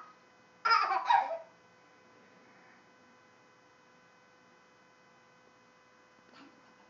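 A toddler's short squealing laugh in two quick pulses, about a second in.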